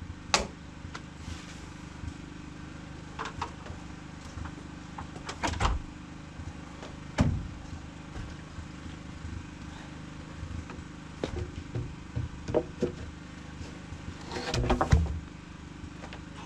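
Rough-sawn spruce boards being set down and shifted into place on a deck frame: scattered wooden knocks and thumps, with a quick cluster of knocks near the end.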